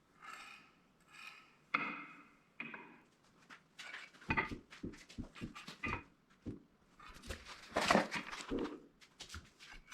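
Hand work with tools and fittings: a few short scraping squeaks in the first three seconds, then a quick, uneven run of clicks and knocks.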